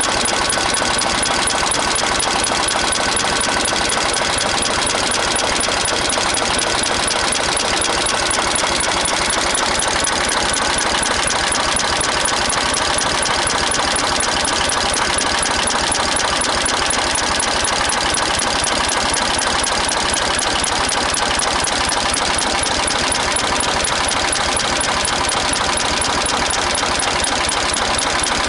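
Renault N70 tractor engine running steadily, a rapid, even clatter that holds at the same speed and loudness throughout.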